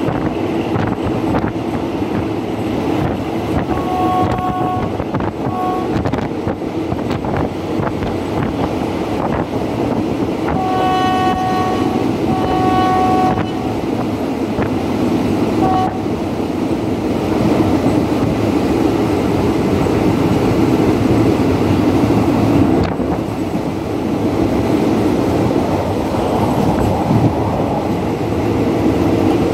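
Train running at speed, heard from an open passenger-car window, with wheels clicking over rail joints; the hauling GE diesel-electric locomotive No. 4044 sounds its horn on two notes at once. It gives a blast about four seconds in with a short toot after it, two longer blasts around the middle, and one brief toot a few seconds later.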